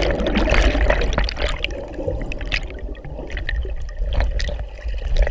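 Creek current heard with the microphone underwater: a muffled, churning rush of flowing water and bubbles with a heavy low rumble and scattered sharp ticks.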